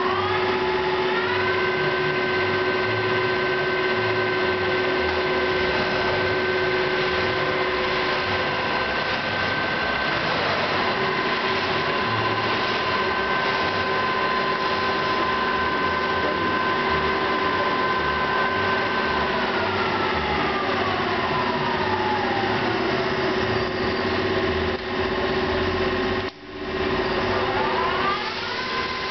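Victor 1660BVS variable-speed geared-head engine lathe running, its spindle drive giving a steady whine. The whine climbs in pitch as the spindle speeds up about a second in, holds, glides down as it slows about two-thirds of the way through, and climbs again near the end.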